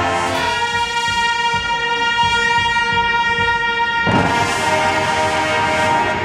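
Marching band brass holding one long sustained chord, then a sudden loud new attack with a wash of cymbal-like noise about four seconds in as the band plays on.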